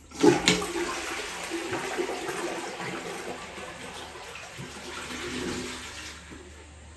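A sudden rush of water, loudest at the start and fading away over about six seconds.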